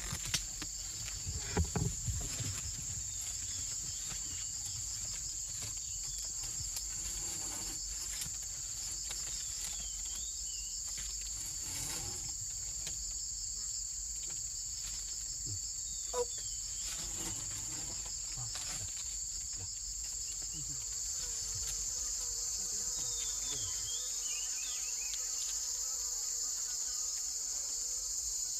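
Steady high-pitched drone of a rainforest insect chorus. There are a few knocks in the first couple of seconds and a single sharp click about 16 seconds in.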